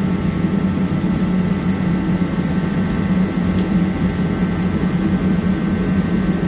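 Garage heater running with a steady, even hum and blower noise.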